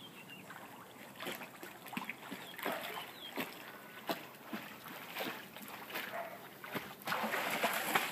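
Water splashing and lapping as dogs paddle across a swimming pool, in small irregular splashes; a louder, longer splash begins about seven seconds in.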